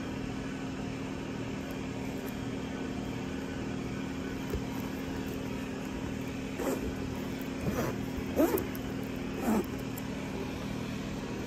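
A steady mechanical hum, like a motor running, with three short, louder sounds with bending pitch in the second half.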